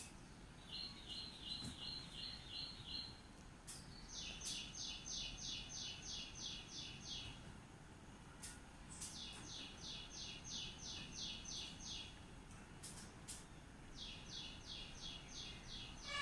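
A bird calling in quick, evenly spaced series of high chirps, about three to four a second, in four bouts of two to three seconds each, faint against background noise.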